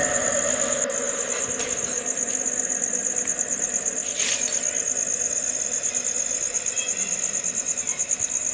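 Crickets trilling: a steady, high, rapidly pulsing chirr. A short swishing rush about four seconds in.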